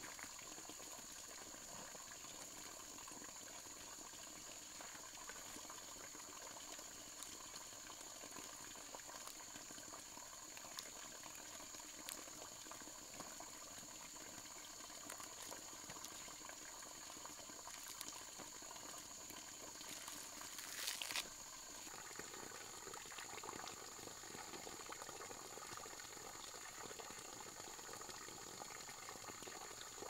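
Faint rainforest ambience: a steady high-pitched drone over a soft, bubbling hiss, with a brief louder hiss about twenty seconds in.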